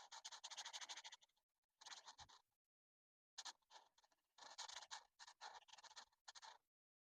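Coloring strokes on paper: quick back-and-forth scratching of a coloring tool in several runs of rapid strokes, with short pauses between them.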